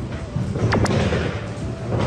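Background music with a pulsing low beat and short held notes, and two quick sharp clicks a little under a second in.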